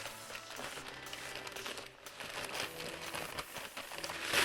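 Packaging being unwrapped by hand: irregular crinkling and rustling of the packing material.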